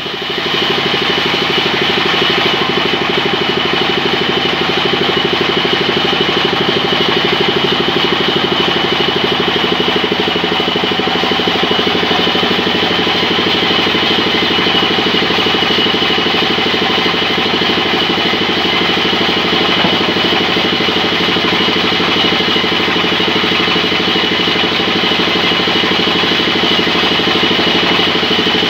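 Large belt-driven sawmill band saw running steadily, its machinery giving an even drone with a steady high-pitched tone on top.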